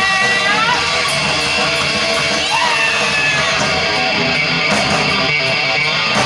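Live heavy metal band playing loud and dense, with distorted electric guitar to the fore and some bent or gliding guitar notes near the start and about two and a half seconds in.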